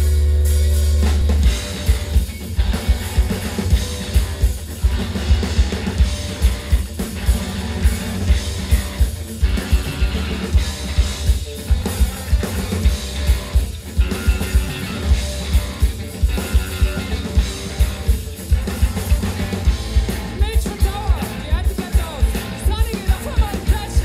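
Live rock band playing through a PA: electric guitar, bass guitar and drum kit. A loud held low note opens, then the drums come in about a second and a half in with a steady, heavy beat under the guitars.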